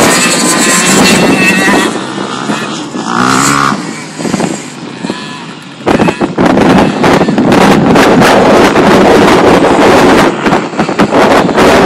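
Small dirt bike engines running and revving as the bikes ride around a dirt track. From about halfway through, dense crackling noise covers the engines.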